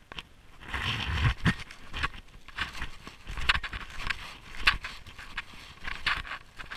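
Snowshoe footsteps crunching in snow, in a steady walking rhythm of about two steps a second.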